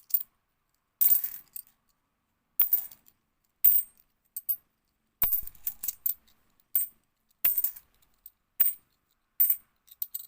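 50p coins clinking as they are set down one at a time while being sorted, a sharp metallic clink about once a second, with a few quick clusters.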